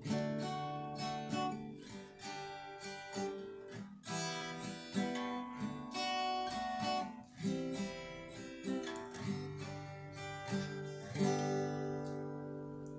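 Acoustic guitar strumming a steady run of chords, the last chord left to ring and die away near the end.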